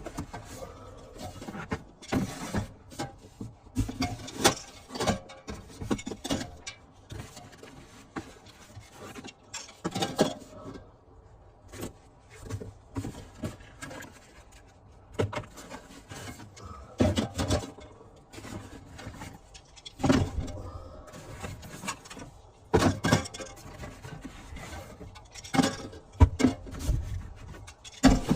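Unpacking a parcel by hand: irregular knocks, clunks and rustles of packaging and items being handled and set down.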